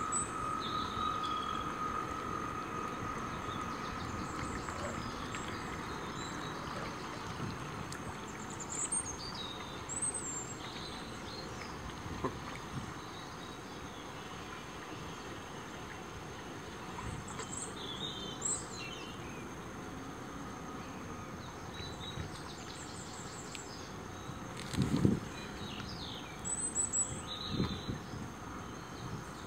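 Outdoor wind-and-water ambience with small birds chirping now and then; at first the thin whine of an RC model lifeboat's motor fades as the boat moves away. About 25 seconds in, a brief low thump is the loudest sound.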